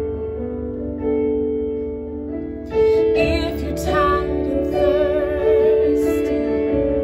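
A woman singing a worship song over sustained instrumental backing. The backing holds long chords at first, and her voice comes in about three seconds in, with a clear vibrato.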